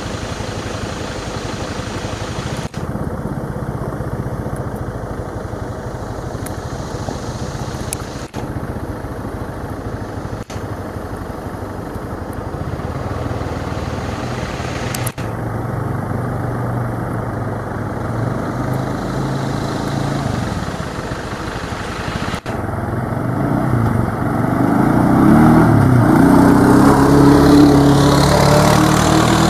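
All-terrain vehicle (quad bike) engine running as it fords a river, over a steady wash of water noise, broken by a few abrupt cuts. Near the end an engine grows louder, its pitch rising and falling.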